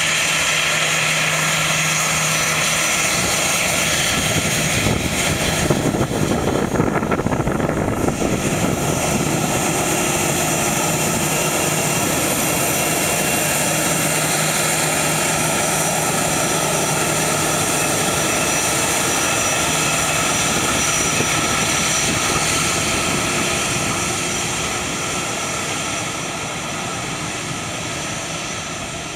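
An Airbus A320's jet engines at takeoff power during its takeoff roll: a loud, steady roar with a high whine. It is loudest about six to eight seconds in and fades over the last few seconds as the jet rolls away.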